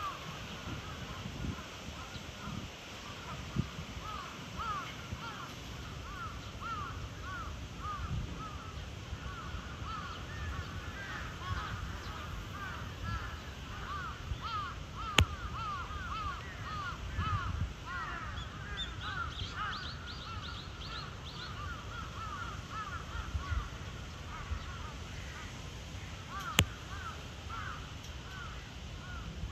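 Cheetah chirping: a long run of short, high chirps, several a second, with two sharp clicks partway through.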